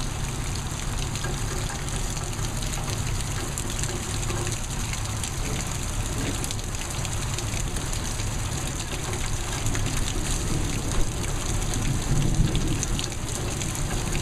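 Steady rush of heavy rain and running water, an even hiss that holds throughout.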